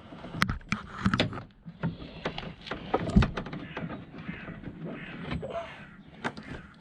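Plastic interior door card being worked against the car door while being refitted: a string of clicks, knocks and rattles, with the heaviest knock about three seconds in.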